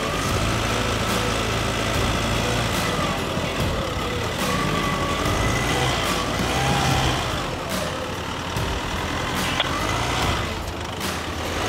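Vehicle engines running during a winch recovery: a Nissan Navara hung up on its sills being pulled backward by a Polaris General side-by-side's winch. A whine rises and falls a few times over the steady engine sound.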